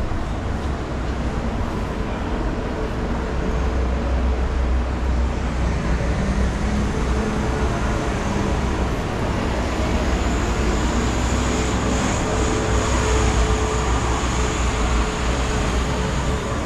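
Busy city street traffic: a steady low noise of passing and idling vehicles, with a faint high whine that comes in about ten seconds in and fades near the end.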